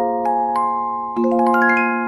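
Music box playing a melody: plucked, bell-like notes that ring on, with a chord about a second in followed by a quick run of rising notes.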